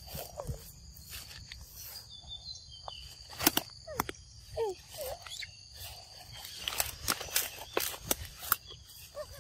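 Footsteps and rustling through leafy forest undergrowth, with many sharp snaps and clicks, over a steady high insect drone. A few short squeaky calls come about halfway through.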